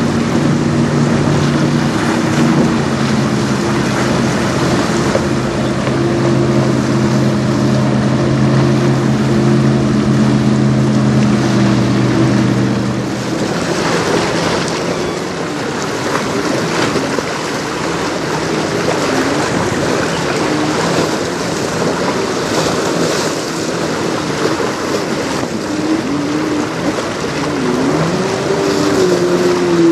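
A sailboat's auxiliary engine running steadily with a low hum as the boat motors by on light power. About 13 seconds in, the steady hum gives way to wind and water noise. A second engine hum with a wavering pitch comes in and grows louder near the end.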